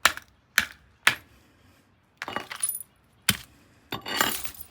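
A series of sharp knocks and clinks of hard objects being struck or knocked about: three knocks in the first second, a clinking patter about two seconds in, another knock, then a longer rattling clatter near the end.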